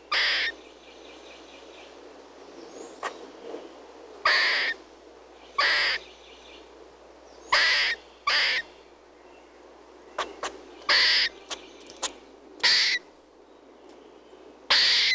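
Squirrel calling: short, harsh chirping barks repeated at uneven intervals, every second or two.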